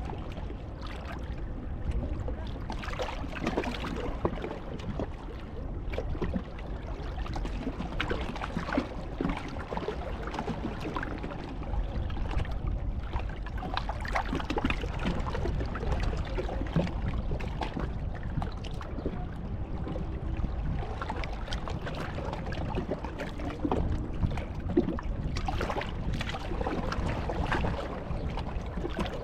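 Sea water lapping and splashing at the shore, a steady wash with many small irregular splashes over a low rumble.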